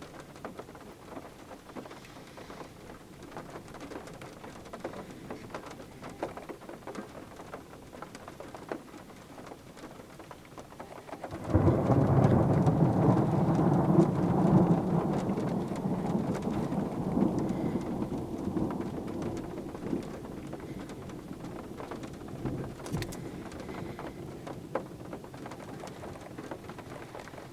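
Rain pattering steadily. About eleven seconds in, a sudden loud thunderclap breaks into a long rolling rumble of thunder that slowly dies away over the following ten seconds.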